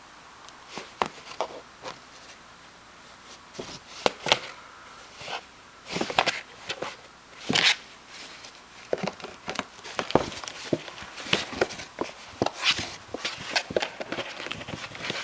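A kitten playing with a cardboard box: its paws and claws knock and scratch at the cardboard in irregular taps and short scrapes, sparse at first and busier in the second half.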